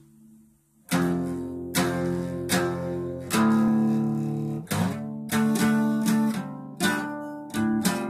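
Acoustic guitar strummed in a slow chord progression, each strum ringing out and fading before the next. The strumming begins about a second in, after a faint lingering chord.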